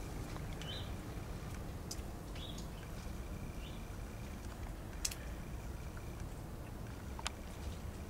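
Steady low outdoor rumble, with three short high chirps in the first half and a few faint sharp clicks.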